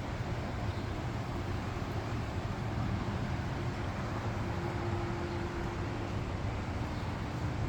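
Heavy thunderstorm rain falling steadily, a continuous hiss with a low rumble underneath.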